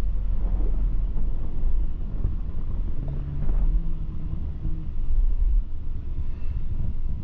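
Vehicle on the move: a steady low rumble of engine and road noise. An engine note stands out for a couple of seconds in the middle.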